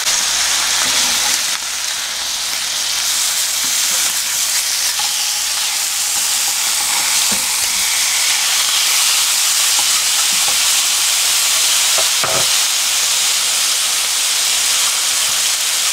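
Skewered pieces of salted shark meat (dombaegi) sizzling steadily in hot cooking oil in a non-stick frying pan. A couple of light knocks come as a spatula turns the skewers.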